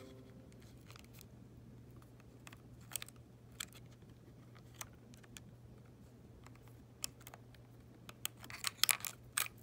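Small clicks and taps of a screwdriver and the plastic and metal parts of an Apple TV 3rd generation being handled during disassembly, with a quick flurry of louder clicks and scrapes near the end as a part comes free. A faint steady low hum sits underneath.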